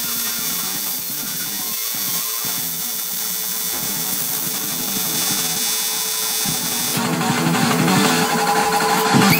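AC TIG welding arc buzzing steadily as it tacks aluminium sheet, under background music that grows louder about seven seconds in.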